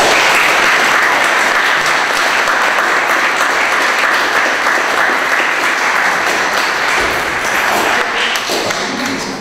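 Audience applauding in a lecture hall, a loud, even clatter of many hands that starts suddenly and tapers off near the end.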